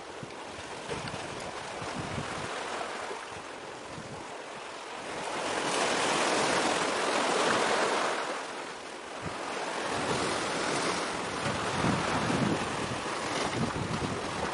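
Wind blowing across the microphone together with the wash of sea waves, a steady rushing noise that swells louder about halfway through, eases briefly and then builds again.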